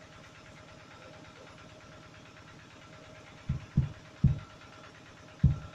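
Four single deep drum thumps over the sound system, irregularly spaced, beginning about three and a half seconds in: a hadroh frame drum being struck for a sound check. Before them only the steady hum and hiss of the PA.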